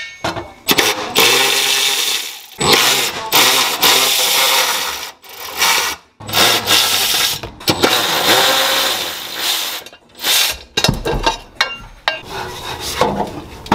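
Power tool running in several bursts of a second or two, with short pauses between.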